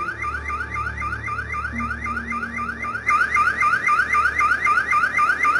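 Car alarm sounding, a rapid electronic whoop that rises in pitch about five times a second. It is muffled at first and much louder from about three seconds in, set off as the car is hauled onto a tow truck's flatbed.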